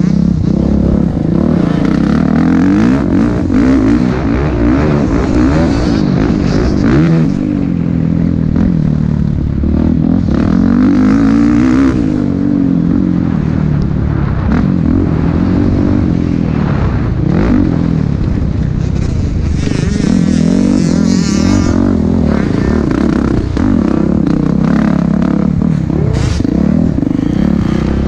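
Motocross dirt bike engine at race pace, revving up and dropping back again and again as the rider accelerates and backs off around the track.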